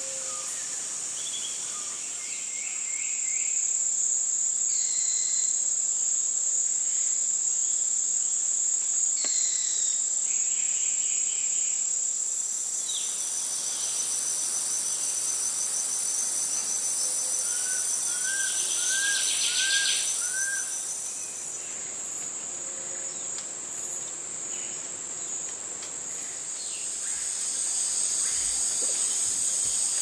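Rainforest insect chorus: a steady high-pitched drone that swells louder a few seconds in and again near the end. Scattered bird calls sound over it, including a run of five short arched whistles about two-thirds through.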